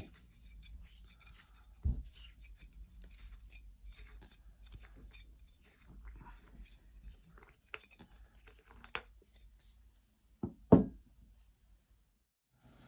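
Metal handling sounds as the steel fin assembly of a deactivated 81mm mortar round is unscrewed from the shell body: faint scrapes and clicks, a knock about two seconds in, then two loud knocks in quick succession near the end as the metal parts are set down on a wooden tabletop.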